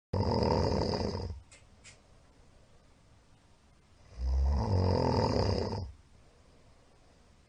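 A middle-aged man snoring loudly in his sleep after drinking alcohol: two long snores about four seconds apart, each lasting well under two seconds, with quiet breathing between them.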